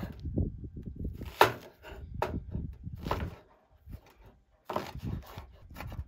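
A kitchen knife cutting through an onion on a wooden chopping board, the blade knocking sharply on the board several times, over a steady low rumble.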